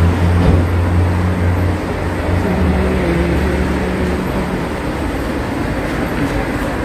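Steady mechanical din of car-wash machinery, with a loud low hum that shifts slightly in pitch and stops about four and a half seconds in, leaving the steady noise.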